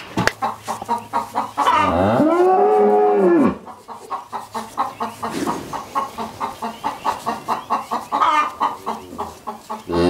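A milking shorthorn cow moos once, a long call that rises and falls, about two seconds in. Chickens cluck around it in short, quick, repeated notes.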